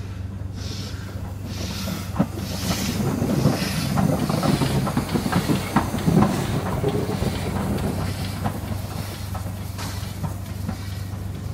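Ivatt Class 2MT tank steam locomotive running light past at close range: steam exhaust and hissing, with the wheels clicking over rail joints. The sound builds from about two seconds in, is loudest as the engine passes near the middle, and fades as it moves off.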